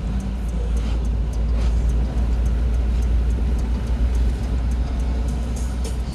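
Inside a moving car: a steady low rumble of engine and tyres on the road.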